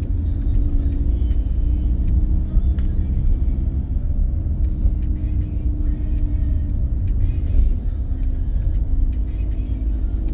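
Car driving along a road, heard from inside the cabin: engine and tyre noise as a steady low rumble.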